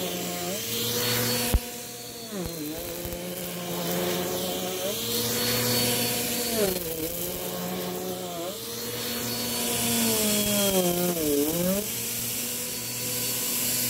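Bissell PowerForce upright vacuum cleaner running over a shag rug; its motor pitch dips and recovers about four times as the head is pushed back and forth. A single sharp click about a second and a half in.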